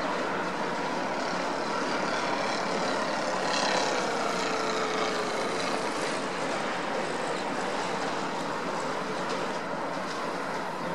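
Light aircraft engines running close by: an ultralight plane's propeller engine and a small helicopter in flight, a steady din with one tone sliding down in pitch a couple of seconds in as an aircraft passes.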